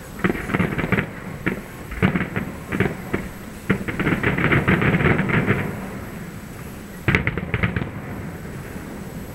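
Aerial fireworks shells bursting in rapid, dense crackling pops. A long run of crackles fills the first half, and a shorter flurry comes about seven seconds in.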